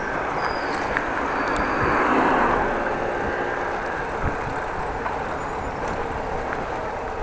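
Steady rush of wind and road noise from cycling, picked up by a chest-mounted action camera's microphone, swelling about two seconds in, with a few faint clicks.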